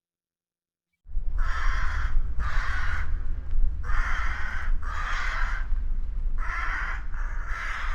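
Crow cawing: seven harsh caws in groups of two, two and three, starting about a second in, over a steady low rumble.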